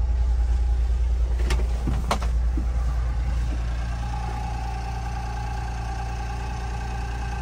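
Honda Acty kei truck's three-cylinder engine idling steadily, with two sharp clicks about a second and a half and two seconds in. From about four seconds in, a steady whine runs alongside the idle.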